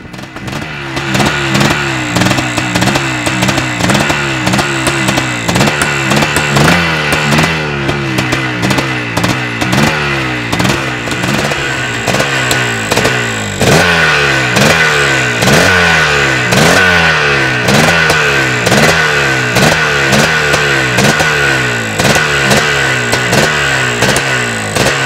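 Yamaha YZ465 two-stroke motocross engine running and being blipped over and over, its revs rising and falling more than once a second. It gets louder about halfway through.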